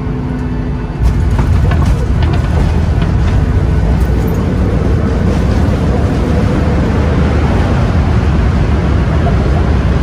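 Boeing 737 cabin on the landing roll: about a second in, the noise jumps to a loud, steady rumble and rush as the jet engines spool up into reverse thrust.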